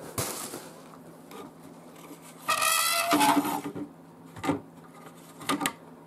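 Plastic tail light housing being handled on a wooden dresser top: a squeaky rub lasting under a second about two and a half seconds in, then two light knocks.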